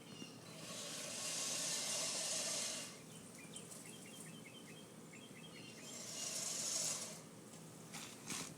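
Distant lawnmower engine running steadily under two swells of rushing hiss, with a run of short high chirps in the middle.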